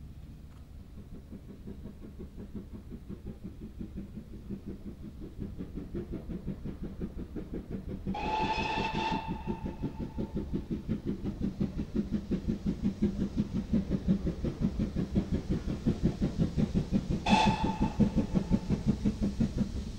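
Great Western steam tank locomotive approaching under load, its rhythmic exhaust beats growing steadily louder. Its whistle sounds twice, a blast of about a second about eight seconds in and a shorter one near the end, the signal called for by a trackside 'SW' whistle board.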